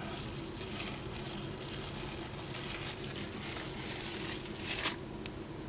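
Plastic cling film crinkling and crackling as it is peeled off the face and crumpled. It swells to its loudest just before it cuts off suddenly near the end.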